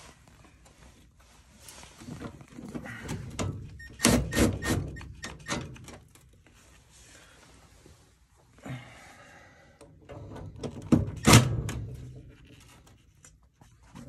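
Clicks, knocks and thunks of metal on furnace sheet metal as a new auxiliary high-limit switch is fitted into the cabinet. There is a cluster of loud knocks about four seconds in and a single sharp knock near eleven seconds.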